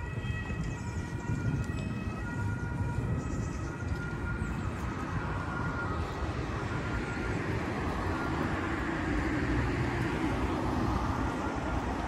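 An emergency-vehicle siren whose pitch steps up and down, fading out about halfway through, while city road traffic noise swells in the second half.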